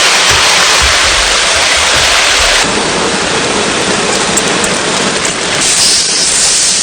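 Steady, loud rushing noise. It changes abruptly about two and a half seconds in, and a few faint clicks come through in the second half.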